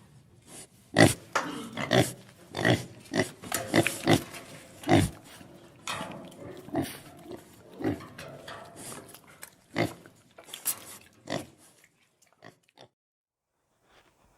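Pig snorting in a rapid series of short, irregular calls, thinning out and stopping about 12 seconds in.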